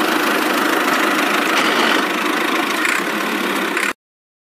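A truck engine sound running steadily at idle, cut off abruptly just before the end.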